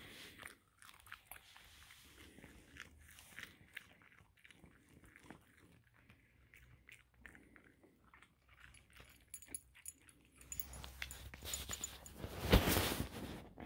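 Maine Coon cat chewing and crunching a piece of breaded fried chicken, with many small crunches and clicks. Near the end there is a louder burst of noise.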